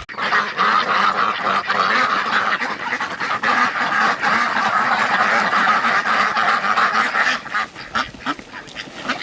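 A flock of ducks quacking together in a loud, dense chorus that thins to scattered calls near the end.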